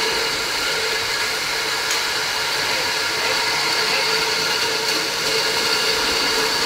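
Aerosol can conveyor line running at 240 cans per minute: a steady mechanical whir with a constant high whine, the belts and drives carrying empty can bodies.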